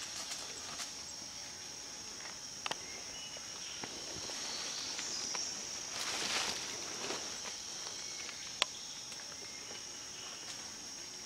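Steady high-pitched drone of forest insects, with scattered footsteps, twig snaps and leaf rustling from someone moving through undergrowth. The rustling swells around the middle, and one sharp snap comes about three quarters of the way in.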